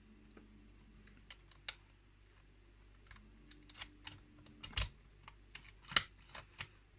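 Key working in a pin-tumbler challenge lock: a run of irregular small metallic clicks from the key, pins and plug, sparse at first and coming thick and louder in the second half.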